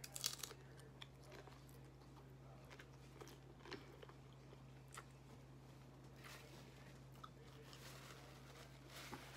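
Faint crunching and chewing of tortilla chips from a plate of nachos: the loudest crunch comes just at the start, then scattered soft crunches. A steady low hum runs underneath.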